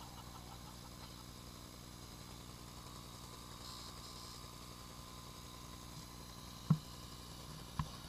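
Faint steady low hum, with two short knocks near the end.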